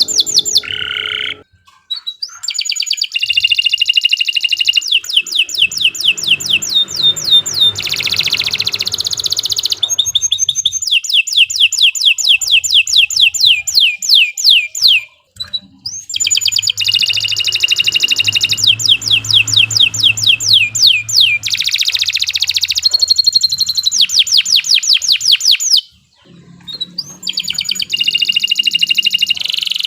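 Domestic canary singing long, fast trills of rapidly repeated notes, in extended phrases broken by brief pauses about two seconds in, around halfway and a few seconds before the end.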